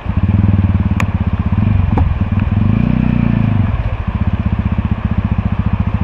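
Single-cylinder engine of a TVS Ronin 225 motorcycle running with a rapid, even low pulse, picking up briefly around the middle and easing back. Two sharp clicks sound in the first two seconds.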